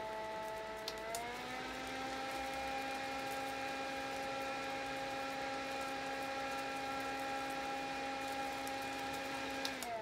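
Envow Haneul-baram portable mini fan running with a steady whine of several tones. About a second in, a button clicks and the whine rises in pitch as the fan steps up to a higher speed setting. Near the end a second click sounds and the whine starts to drop as the fan is switched off.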